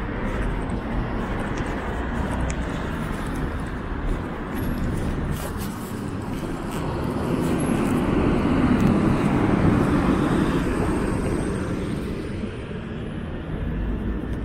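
City street traffic noise, with a vehicle passing close that swells to its loudest about eight to ten seconds in, then fades back to the general traffic hum.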